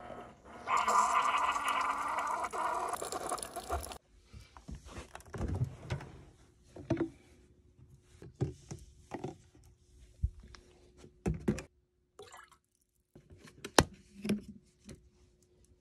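Pod coffee brewer dispensing into a mug with a loud sputtering hiss for about three seconds, cutting off abruptly. After that come scattered clicks and knocks as a plastic coffee creamer bottle is taken from the fridge door and handled, over a faint steady hum.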